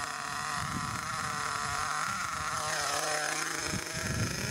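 Small nitro engine of an HPI Savage XL 5.9 RC monster truck running with a steady high whine. Its pitch dips and rises briefly about three seconds in. The engine is new and still in its running-in phase.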